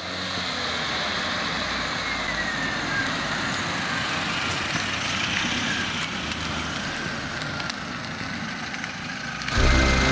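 Car driving, a steady run of engine and tyre noise. About nine and a half seconds in, louder music cuts in suddenly.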